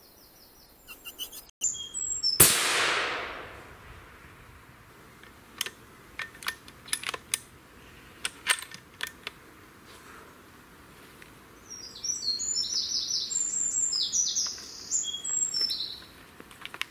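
A single shot from a .243 Mauser M12 bolt-action rifle about two and a half seconds in, its report ringing on for about a second. A scatter of short sharp clicks follows, then a small bird sings a rapid run of high chirping phrases near the end.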